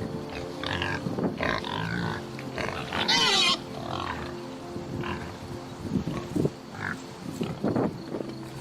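Pigs grunting in short calls, with one loud, high squeal about three seconds in.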